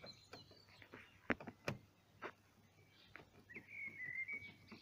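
Faint sounds of a screwdriver undoing a Torx bolt on a van's rear door: a few sharp clicks, then near the end a high, slightly wavering squeak lasting about a second as the bolt turns.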